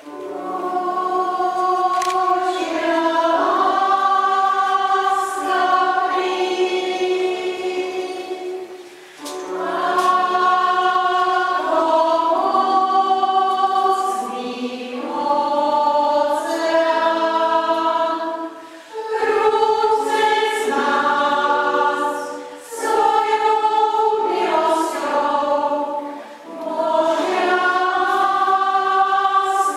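Choir singing in a church, in phrases with brief pauses between them.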